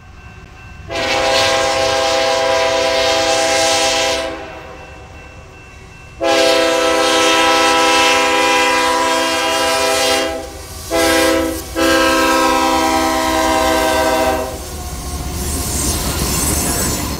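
Diesel freight locomotive's multi-chime air horn sounding the grade-crossing signal: two long blasts, a short one, then a long one. Near the end the rumble and clatter of the train's wheels on the rails builds as it comes up to the crossing.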